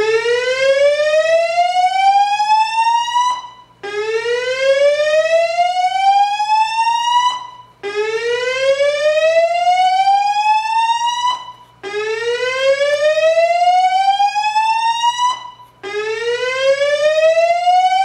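Building voice-evacuation fire alarm sounding its slow-whoop tone: a rising sweep that climbs for about three and a half seconds, then restarts, about every four seconds. It is the evacuation signal between spoken emergency messages.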